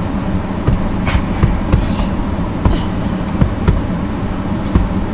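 Steady low rumble inside a car's cabin, with scattered knocks and rustles from bumps against the seat and camera.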